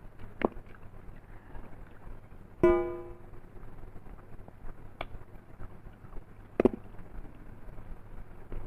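Dishes clinking during a meal of rice and mutton curry: a few sharp taps, and about three seconds in one louder clink that rings at a clear pitch and fades quickly, like a plate or bowl being struck.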